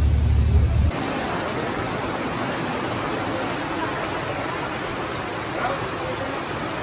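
A boat's engine drones low for about the first second; then, after a cut, rain pours down over the sea in a steady, even hiss.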